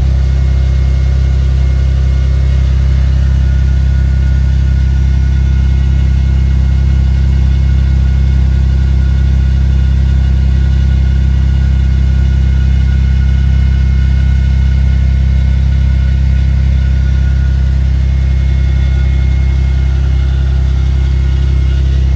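Vauxhall Vectra B GSi's 2.5-litre X25XE V6 idling steadily through a Magnex stainless steel cat-back exhaust with a 200-cell sports cat, heard from beneath the car. It is running smoothly on fresh petrol.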